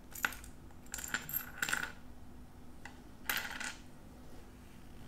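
Light clicks and clinks of a pocket watch's bezel and its broken glass crystal being handled. One click comes at the start, a quick cluster about a second in, and a short burst of clinks a little past three seconds.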